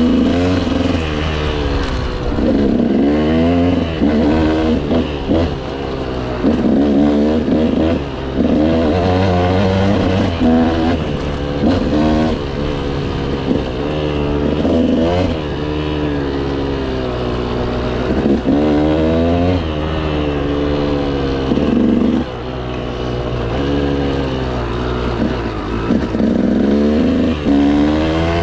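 KTM motorcycle engine running under way, its pitch climbing and falling again and again every second or two as the throttle is opened and closed.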